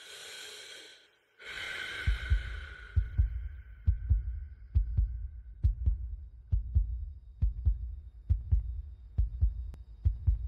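A bright ringing tone with overtones sounds twice in the first two seconds. Then a heartbeat sound effect follows: low double thumps, lub-dub, repeating evenly a little more than once a second.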